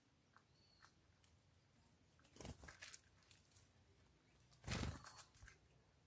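Near-quiet background broken by two brief wing flutters of small birds landing, about two and a half seconds in and again, louder, near five seconds in.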